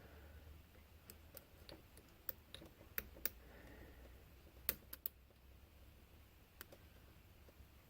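Faint, irregular small clicks of a lock pick and tension wrench working the pins inside a pin-tumbler lock, bunched in the first five seconds with the sharpest click just before the five-second mark, then sparser.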